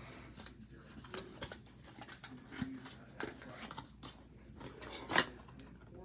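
A puzzle cube and its small cardboard box being handled and pulled apart: scattered light scrapes, rustles and clicks, the sharpest about five seconds in.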